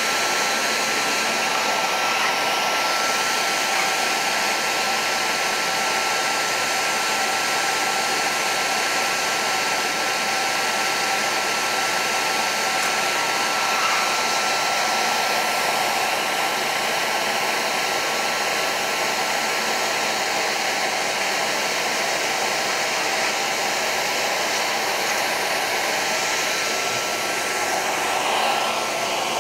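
Handheld hair dryer blowing steadily, with a thin steady whine over the rush of air, as it warms a frost-covered liquid-nitrogen transfer line to thaw it.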